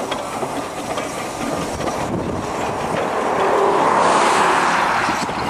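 Narrow-gauge single Fairlie steam locomotive 'Taliesin' running light past and away, its wheels clicking over the rail joints. A broad hiss swells about halfway through and then eases.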